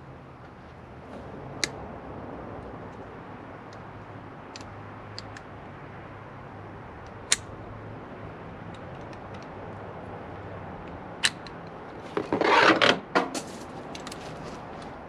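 Handling noises of hands-on installation work: a few sharp, isolated clicks and knocks, then a louder rustling scrape lasting about a second near the end, over a low steady hum.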